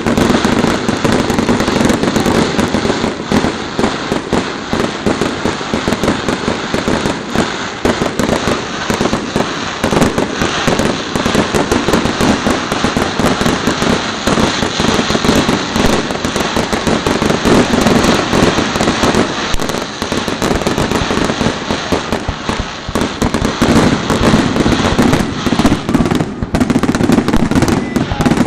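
Aerial fireworks display: a dense, unbroken barrage of crackling and bangs from bursting shells.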